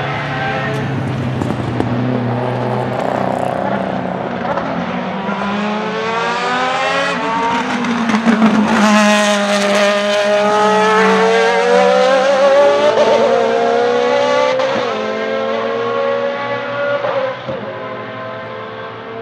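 Zytek V8 race engine of the MG-AR1 Furore at speed on track, loudest as it passes close about eight seconds in, then its note rising steadily as it accelerates away. The level drops suddenly near the end.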